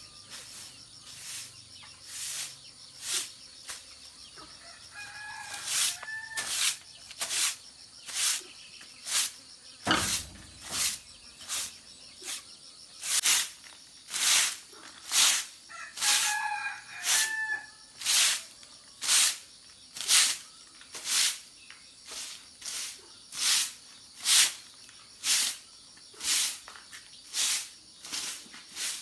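A rooster crows twice, about five seconds and about sixteen seconds in. Under the crows, a sharp stroke sound repeats steadily about once a second, with one heavier thump around ten seconds in.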